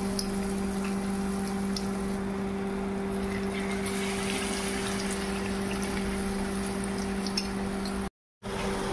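Spoonfuls of cabbage, carrot and egg fritter batter sizzling as they fry in hot oil in a frying pan: a steady bubbling hiss with light crackles over a steady low hum. The sound cuts out briefly near the end.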